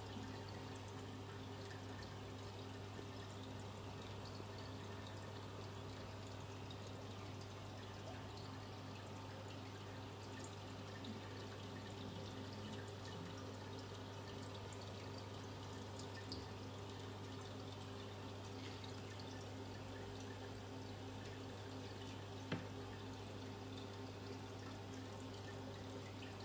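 Aquarium filter running: a steady trickle of water over a low, even hum, with a few faint ticks.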